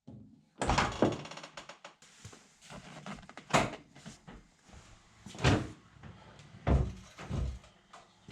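A series of knocks and clunks at irregular intervals, about six strong ones with lighter clatter between.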